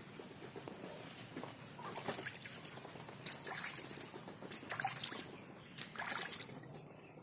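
Water splashing and trickling in a shallow basin as a Muscovy duck dabbles its bill in it, in several short splashy bursts.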